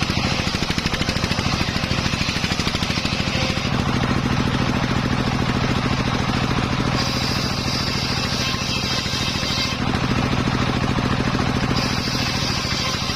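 Engine-driven homemade circular saw running steadily. Twice, for two to three seconds each, a higher-pitched sound rises over the engine, about halfway through and again near the end, as the blade cuts through teak.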